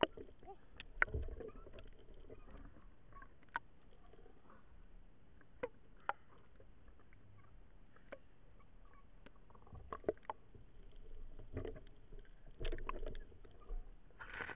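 Water splashing and lapping around a camera held at the sea surface, with scattered sharp clicks and knocks. A cluster of louder splashes comes near the end as a speared grouper is lifted out of the water.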